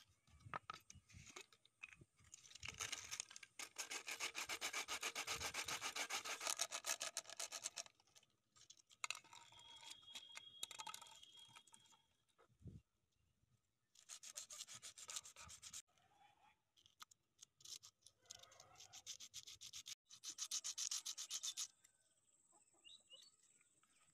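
A blade sawing and scraping through thin plastic, in rapid back-and-forth strokes that come in several bursts of a few seconds each, the longest and loudest a few seconds in.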